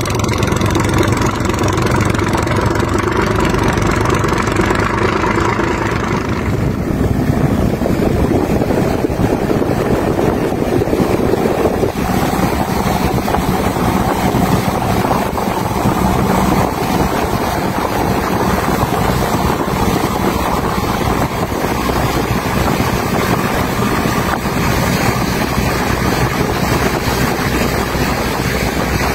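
Boat engine running steadily with the rush of water and wind, heard from aboard a small boat under way.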